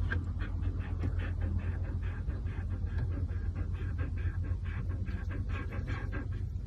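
A dog panting rapidly, about five or six quick breaths a second, over a steady low hum.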